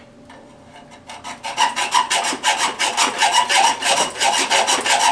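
Hacksaw cutting through copper pipe: quiet for about a second, then quick, even back-and-forth rasping strokes, roughly four a second.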